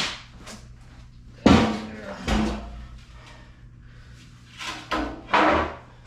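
Knocks and short scrapes from heavy skid plates and their packaging being handled and set down, the loudest thud about one and a half seconds in and another cluster near the end.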